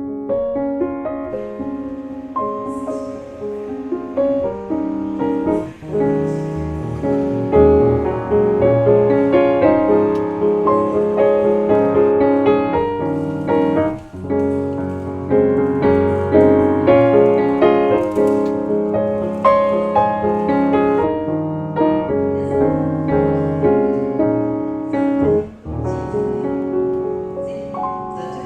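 Background piano music, a gentle piece of many overlapping notes with a brief lull about six seconds in and another near the end.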